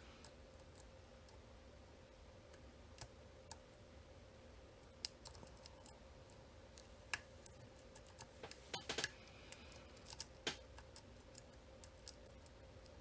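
Faint, irregular small clicks of a pick and tension tool working the pins of a VSR 9-pin dimple cam lock, with a denser run of clicks about two-thirds of the way through.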